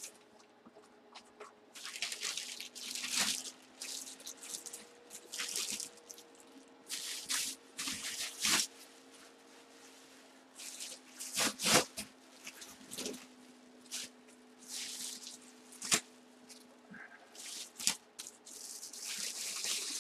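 Clear plastic bag and bubble wrap crinkling and rustling in irregular bursts as a bagged football helmet is handled, with a few sharp knocks in the second half.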